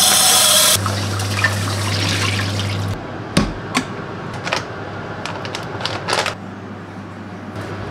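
Dry rice grains poured from a bag into a rice cooker's inner pot: a loud rush lasting under a second, then a softer trickle and rustle. About three seconds in, a sharp click as the Toshiba rice cooker's cook switch is pressed down, followed by a few small clicks and rustles of the bag being clipped shut.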